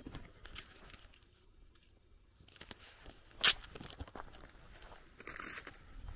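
Light crunches of footsteps on a gravel path fading to a near pause, then one sharp snap about three and a half seconds in, and a brief rustle of leaves near the end.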